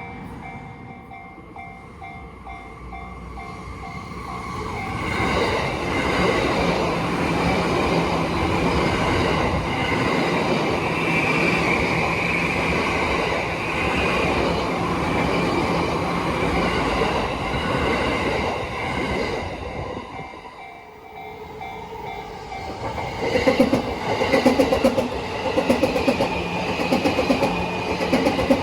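Level-crossing warning bell ringing in a repeating pattern while a JR Yamanote Line E235-series electric train passes. The train's running noise builds from about four seconds in and fades around twenty seconds. The bell then comes through again, and near the end another train's wheels clatter rhythmically over the rail joints.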